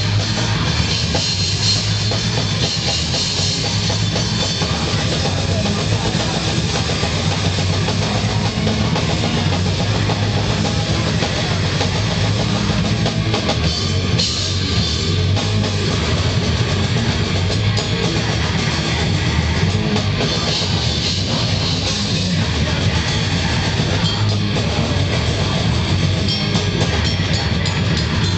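A live rock band playing loudly and without a break: electric guitars over a drum kit, through stage amplifiers and speakers.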